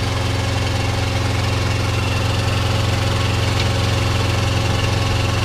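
Engine idling steadily: an even, low drone that does not change.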